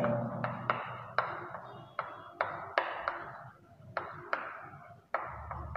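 Chalk writing on a blackboard: about a dozen sharp, irregular taps as the chalk strikes the board, each trailing into a short scratch of the stroke.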